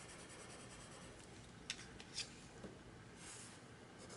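Faint sound of a colored pencil on paper: two light ticks as the tip touches down, then a short scratchy stroke near the end as the lightest green is laid over a swatch.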